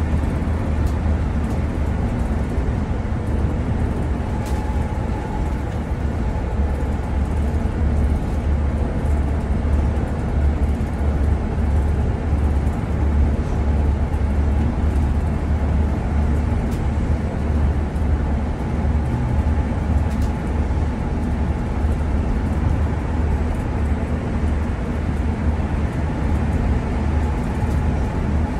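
Steady low rumble of a large motorhome's engine and tyres at highway speed, heard from inside the cab.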